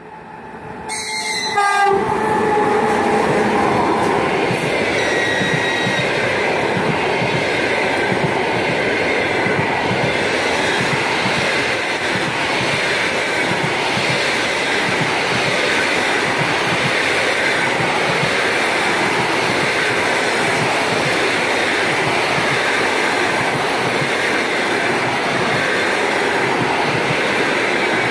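EP1P electric locomotive sounding its horn as it reaches the camera in the first few seconds, then the long passenger train running past close by. The carriages' wheels make a steady, loud noise on the rails throughout.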